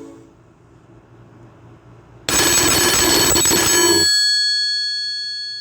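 A Nokia E5 ringtone that sounds like a telephone bell. It starts abruptly about two seconds in with a loud ring lasting nearly two seconds, then a few clear bell tones slowly die away. The end of the previous tone fades out at the very start.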